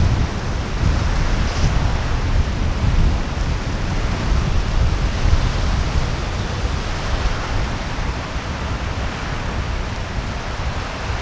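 Strong wind buffeting the microphone as a heavy, steady rumble, easing slightly near the end, with small waves breaking on a stony lake shore beneath it.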